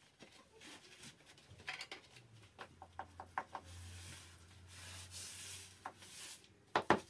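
Faint rubbing and scraping strokes of a hand tool worked against a bare plaster wall, with a quick run of short strokes about three seconds in and a couple of louder ones near the end.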